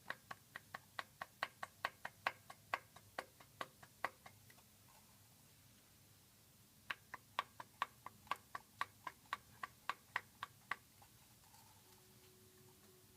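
Ford Focus II engine knocking: two runs of sharp, regular knocks, about five a second, with a pause of a couple of seconds between them. The owner takes the knock for a loose, slapping piston.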